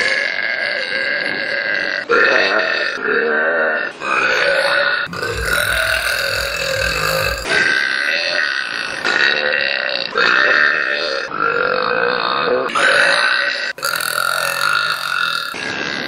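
A young woman belching loudly, a string of long pitched burps one after another, each lasting one to two seconds.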